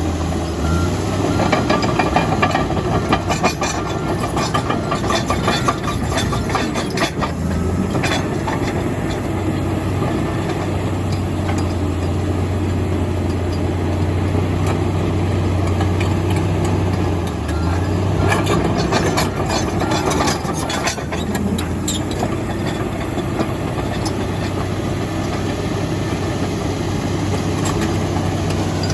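Komatsu D85EX bulldozer's diesel engine running steadily under work. Stretches of clatter come a second or two in, around eight seconds in, and again around twenty seconds in.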